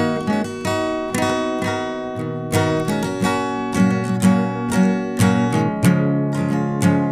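Background music: acoustic guitar picking and strumming chords, with a fresh note or chord struck every half second or so.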